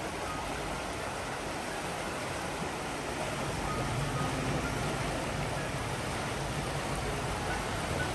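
Steady rushing water, an even wash of noise with no break or change.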